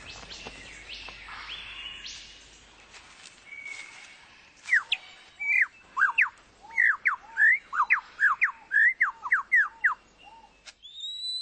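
Superb lyrebird singing: after a few seconds of faint forest calls, a loud, fast run of sharp falling notes starts about five seconds in, two to three a second, each ending in a short low note.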